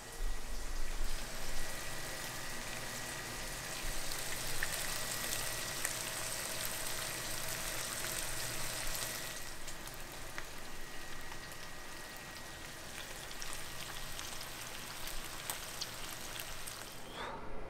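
Meat frying in a hot pan under a mesh splatter screen: a steady sizzle with fine spitting crackles, easing slightly about halfway through.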